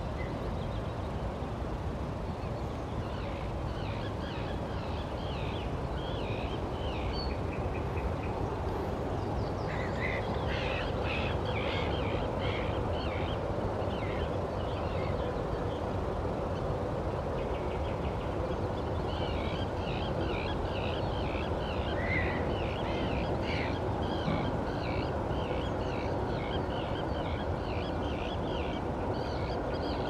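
Songbirds singing in a morning chorus: many short chirps and trills in overlapping phrases that start a few seconds in and go on, over a steady low background rumble.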